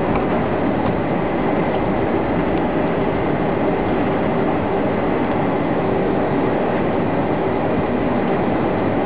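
Jet airliner noise heard while rolling along a runway: a loud, steady rumble with a thin, steady high whine over it.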